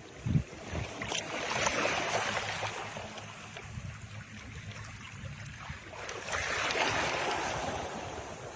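Two slow swells of rushing noise, like surf washing in, about five seconds apart, over a faint low rumble.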